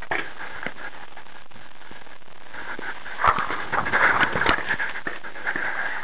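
Handling and wind noise from a camera carried by someone moving quickly across a grass paintball field. Between about three and four and a half seconds in come a burst of footfalls and knocks and two sharp pops.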